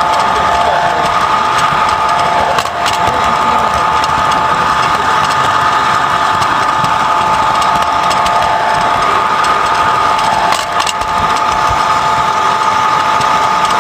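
Electric toy train running on tinplate track, heard close up: a steady motor and gear whine over the rumble of wheels rolling on the rails, with two brief clicks and dips about 3 and 11 seconds in.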